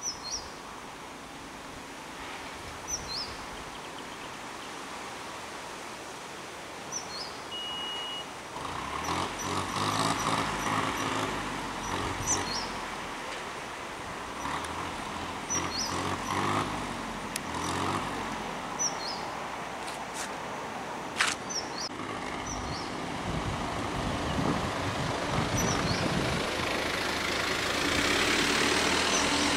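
Tractor engine running, rising and falling in revs from about a third of the way in and getting louder near the end as the tractor moves off. A bird repeats a short falling chirp every two to three seconds.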